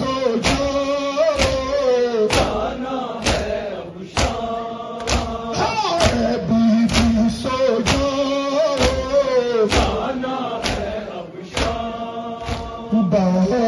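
Men chanting a Shia noha (lament) together, with the crowd's matam chest-beating striking in time about once a second.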